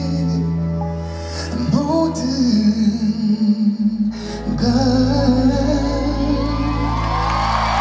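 A male singer singing live into a handheld microphone over band accompaniment.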